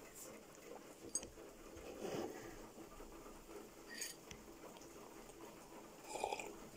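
Faint sips from a china mug with a teaspoon standing in it, and small clicks of spoon and china. The loudest sip or clink comes near the end.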